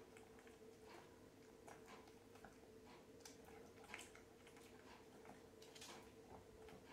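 Near silence with a faint steady hum and scattered faint clicks, about one every second or two: a small long-haired Chihuahua chewing a biscuit at its plate.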